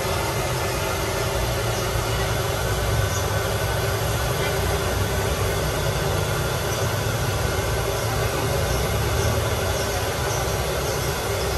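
Cakwe (Chinese fried dough sticks) deep-frying in a wide wok of hot oil: a steady sizzle, with the low rush of the gas burner under the wok beneath it.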